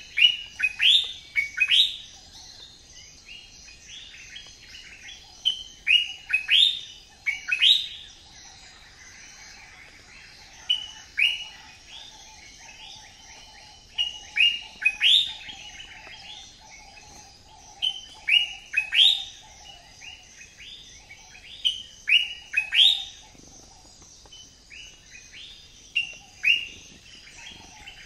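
Birds calling: loud, sharp chirps in clusters of two or three, repeating every few seconds, over a faint steady background hiss.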